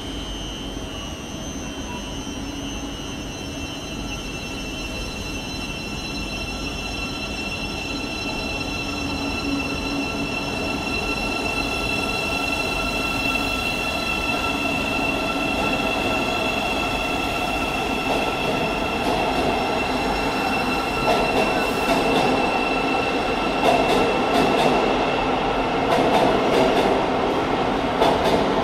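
Thameslink Class 700 electric multiple unit pulling out of an underground platform and gathering speed. A steady high whine runs throughout, and the rumble of the wheels grows louder as the carriages pass, with clicks from the wheels over the rail joints in the last several seconds.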